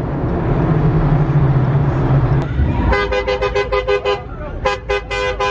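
A car engine running steadily, then a car horn honked in quick short beeps, about six a second, in two runs from about halfway through.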